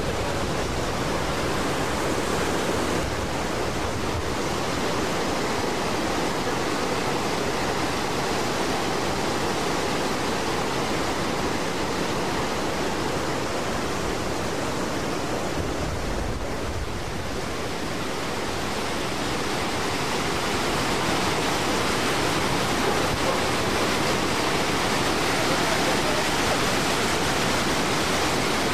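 Steady rushing of a large waterfall with a 43-metre drop: a loud, dense, even noise of falling water that does not let up.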